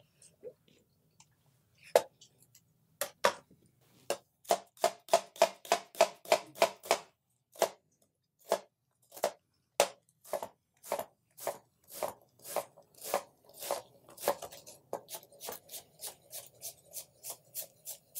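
Knife dicing half a peeled onion on a plastic cutting board: a long series of sharp chops, a few scattered at first, then several a second.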